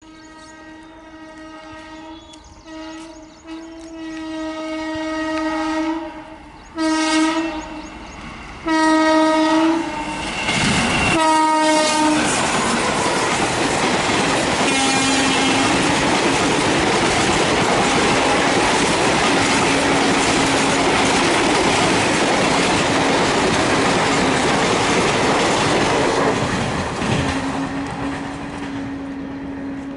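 WAM4 electric locomotive's horn sounding one long blast and then three shorter blasts as the express approaches. The last blast drops in pitch as the locomotive passes. Then comes the loud rush and wheel clatter of the express coaches going past at speed, fading near the end, with a lower steady horn-like tone under it.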